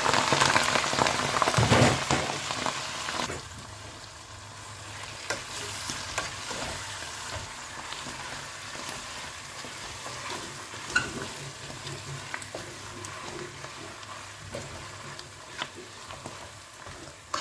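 Sliced waterleaf frying in hot palm oil in a pot. It sizzles loudly for about the first three seconds, then settles to a quieter steady sizzle with occasional sharp taps from stirring.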